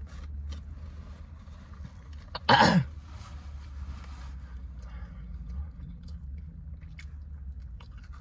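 A person chewing sauced fried chicken wings, with small wet clicks of the mouth, and one loud, short cough about two and a half seconds in, over a steady low hum.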